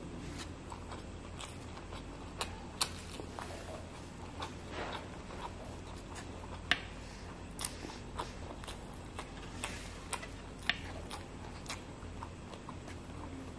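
Close-up mouth sounds of eating soft fish and rice by hand: chewing with irregular sharp wet lip smacks and clicks, over a faint steady low hum.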